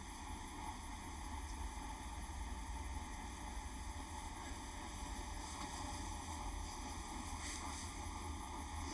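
Steady low rumble and faint hiss of quiet room tone, with no distinct sound event.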